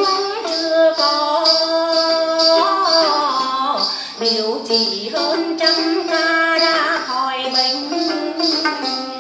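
A woman singing a Tày then folk song to her own plucked đàn tính gourd lute, with a steady jingling beat behind them.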